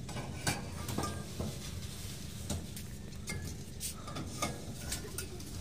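Scattered light metallic clicks and knocks, about a dozen, as a steel bar pries at a curved steel plate being bent round on a hand-operated rolling jig. A steady low hum runs underneath.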